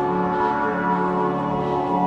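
Background ambient music of many held, bell-like tones sounding together.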